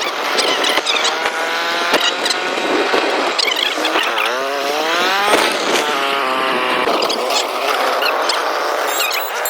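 Motor engines running and revving, their pitch sweeping up and down again and again, with a marked rise and fall about halfway through.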